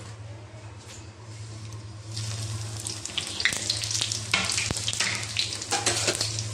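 Cumin seeds and dried red chillies dropped into hot oil in a kadhai, tempering for a tadka: the oil starts sizzling about two seconds in and keeps crackling with sharp pops as the seeds fry.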